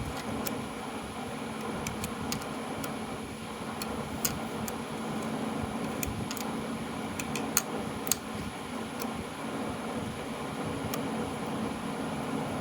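Scattered sharp metallic clicks of a socket wrench and parts being handled as a small 1/4-inch bolt is worked on a Delco starter, over a steady fan-like hum.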